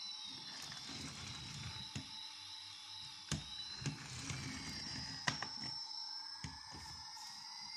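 Toy jumbo jet's electronic sound effect: high beeping tones slowly gliding up and down over a steady tone. Over it come a low rumble and a few sharp plastic knocks and clicks as the toy is handled on the floor.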